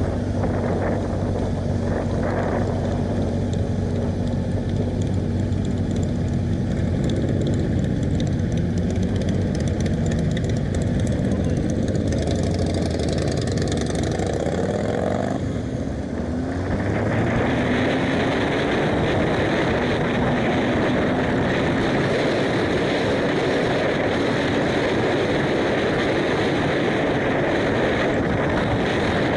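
Motorcycle engines running under way, with wind rushing over a helmet-mounted camera microphone. About halfway through the level dips briefly and engine pitch glides up and down. From then on the wind noise is louder.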